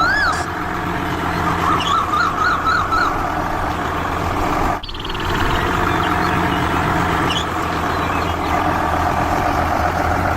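Small motor of a DIY mini tractor running steadily with a low hum. Warbling high tones rise and fall over it: one at the start, then a quick run of about six between two and three seconds in. The sound breaks off briefly about five seconds in.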